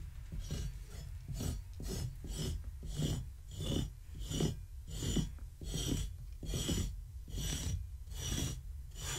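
A grooming brush drawn repeatedly through a long-haired cat's thick coat, about two short strokes a second, pulling out loose fur.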